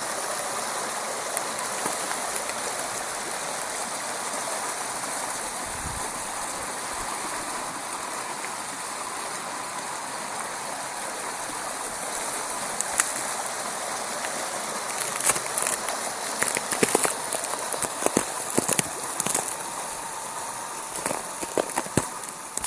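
Steady rush of running water, most likely floodwater. About two-thirds of the way through, a run of sharp, irregular crunching crackles joins it.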